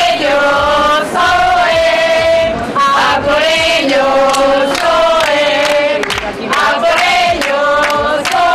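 A group of voices singing a football chant in unison, in short repeated phrases of long held notes.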